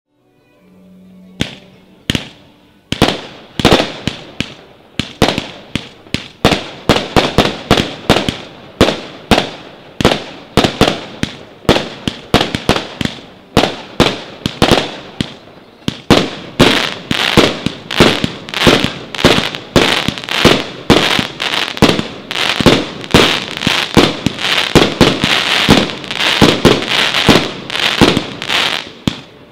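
Triplex TXB099 'Pyro Night 4' compound fireworks cake firing its 0.8–1.5 inch shots: a rapid run of launch thumps and aerial bursts, two to three a second, starting about a second and a half in. From about halfway the shots come closer together and a steady hiss of sparkling stars fills the gaps.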